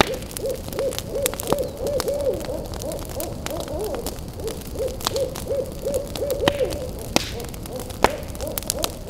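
Owls hooting over and over, short arched calls at one steady pitch, about two or three a second, with two birds overlapping now and then. Sharp crackling snaps, like burning wood, sound through it.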